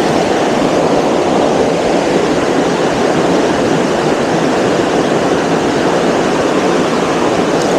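Steady rush of flowing stream water, an even, unbroken noise.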